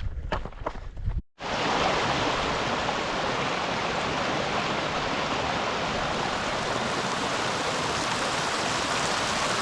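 A few footsteps on a trail for about the first second, then after a brief cut, the steady rush of running water from a mountain stream.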